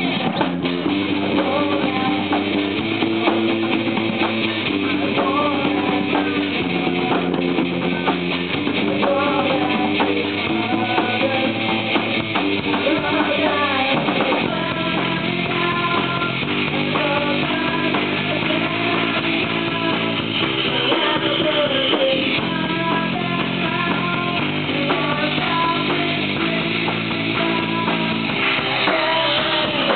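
Live rock band playing: electric guitar through a Marshall combo amplifier over a Mapex drum kit with cymbals, a wavering lead line above the chords.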